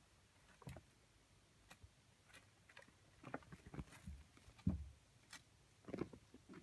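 Ragdoll kittens playing on a woven rug: scattered soft taps and scuffs of paws, with a louder low thump about two-thirds of the way through and a quick run of taps near the end.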